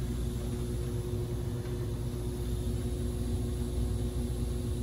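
Borg Warner gas-fired furnace running with its burners lit while the heat exchanger warms up. It makes a steady low rumble with an even hum over it.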